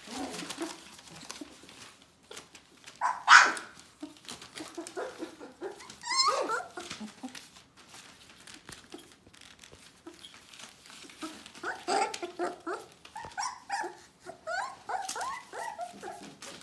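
Litter of young puppies whimpering and yipping. There is one loud short yelp about three seconds in, and a run of high little cries in the second half, over the scratch and rustle of paws on newspaper.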